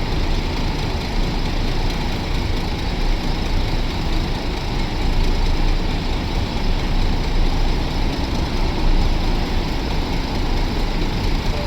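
Large bus diesel engine running steadily at low revs.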